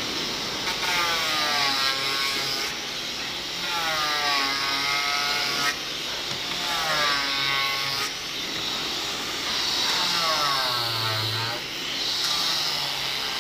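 Handheld electric sander working over a wooden door. Its motor whine dips and rises in pitch with each stroke, about every two to three seconds, over a steady hiss of abrasive paper on wood.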